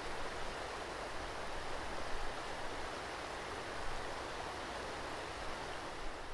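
A river running nearby, a steady even rush of water.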